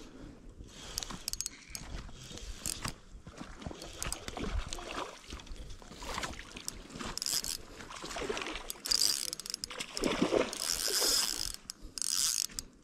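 Fishing reel clicking and whirring in an uneven run while a hooked fish is fought, louder in the second half.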